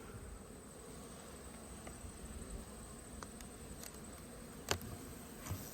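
Honeybees buzzing faintly around a hive, with two light clicks near the end.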